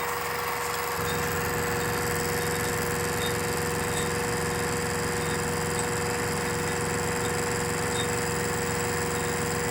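LMS 3900 HiTorque Mini Mill running with a 5/8 inch four-flute end mill taking a deeper cut through acrylic: a steady motor whine, with a lower rumble joining about a second in.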